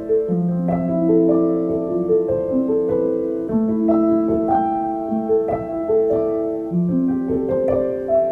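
Background piano music: a slow melody of held notes, a new note about every half second to a second.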